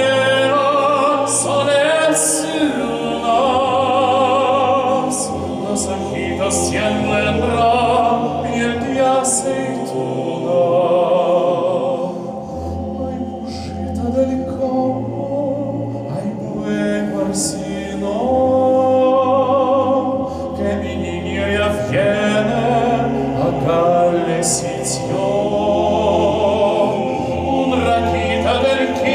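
Male monastery choir singing a cappella: a male soloist's voice with wide vibrato carries the melody over sustained, very low bass notes from the other singers.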